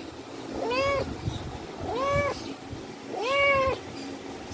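Tabby kitten meowing three times, about a second apart, each meow rising and then falling in pitch.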